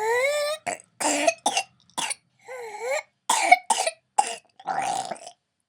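A toddler's whooping-cough (pertussis) coughing fit: a string of short, harsh coughs broken by pitched, whooping gasps as she draws breath, one right at the start and one about halfway. The whoop on breathing in after a run of coughs is the classic sign of pertussis.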